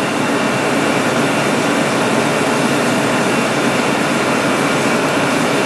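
Loud, steady, even rushing noise with no distinct events.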